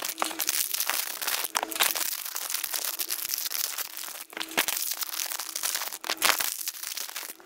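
Crinkly plastic snack wrappers crackling and tearing as individually packed croissants are torn open and pulled out, one packet after another.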